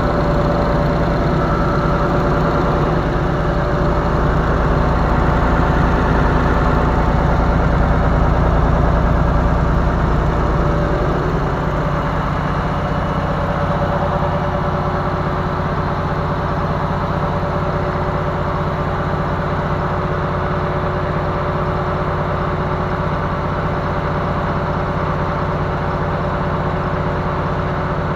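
Air compressor converted from a Star 200 truck engine, driven from a tractor's power take-off, running steadily while it pumps air into the receiver tank. The low running sound drops a little about eleven seconds in.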